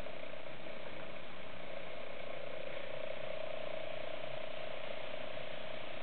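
Steady hiss with a faint steady hum underneath, unchanging throughout; no distinct event stands out.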